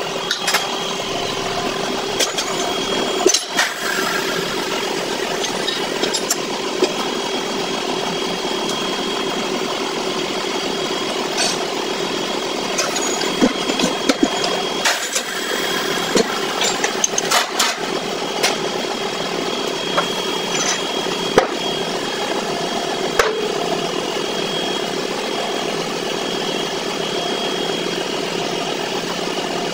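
Steady motor hum from workshop machinery, with scattered clicks and knocks of a car tyre being levered onto an alloy rim on a Coats tyre changer. A high whine in the hum drops out about three-quarters of the way through.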